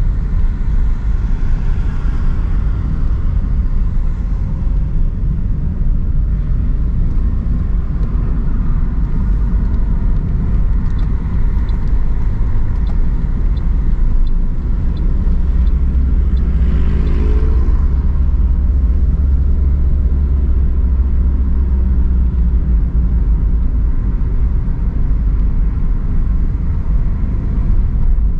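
Street traffic: cars passing over a steady low rumble, with one vehicle passing close about two-thirds of the way through.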